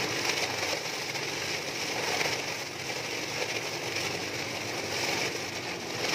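Biscuit-and-chips depackaging machine running: a steady mechanical whir and rush that pulses slightly and unevenly.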